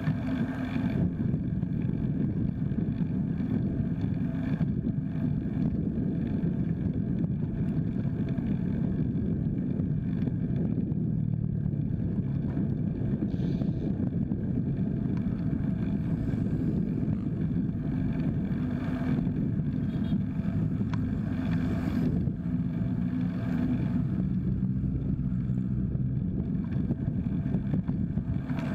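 Low, steady rumble of wind buffeting the microphone, mixed with the tyre noise of a folding bike rolling along a paved road.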